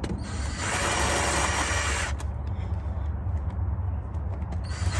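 Power tool running in two bursts, from about half a second in to two seconds and again near the end, spinning out the loosened CV axle flange bolts.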